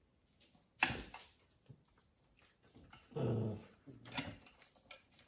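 Small dog making short vocalisations: a sharp, loud yap about a second in, then a brief low growl-like sound about three seconds in, followed by another short sharp noise.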